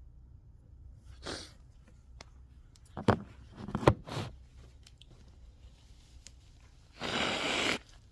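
A person's nose and breathing, irritated by inhaled pepper: a sniff about a second in, a few short sharp snorts a few seconds in, then a long, forceful noisy breath near the end.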